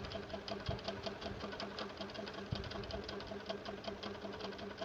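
A steady, even mechanical clicking, about six or seven clicks a second, over a low steady hum, like a small machine running.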